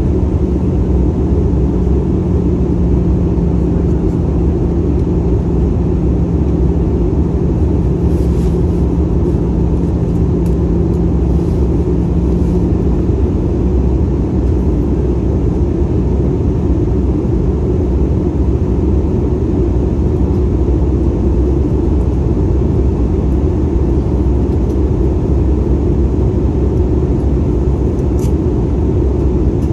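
Steady low rumble of a jet airliner's cabin in flight, heard from inside the cabin, with a steady hum that stops about 13 seconds in.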